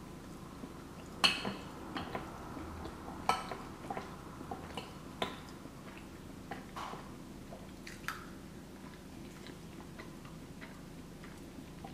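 Close-up chewing and mouth sounds of someone eating cheesy pasta, with scattered sharp clicks and scrapes of a metal fork in a glass baking dish, the loudest about a second in.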